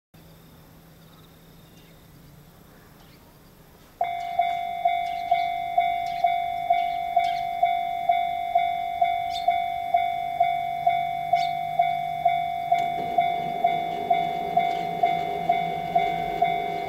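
Japanese railway level-crossing alarm switching on about four seconds in, sounding its repeated electronic 'kan-kan' bell tone nearly three times a second. In the last few seconds a train's rumble builds underneath as it approaches the crossing.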